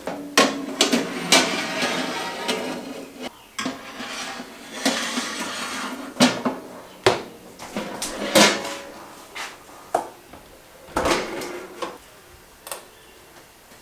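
Metal oven trays and racks clanking and scraping as they are handled and slid into a small countertop oven, with rustling in the first few seconds and scattered sharp knocks that ring briefly.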